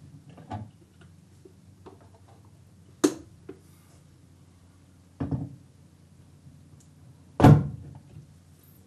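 Four separate thumps about two seconds apart, the last and loudest near the end.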